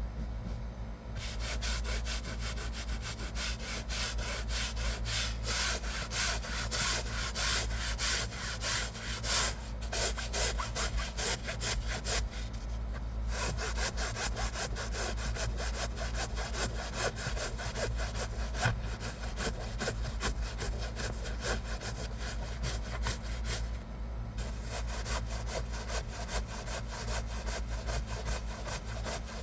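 Small stiff hand brush scrubbing fabric car-seat upholstery in fast back-and-forth strokes. The scratching starts about a second in and breaks off briefly twice, once near the middle and once near the end.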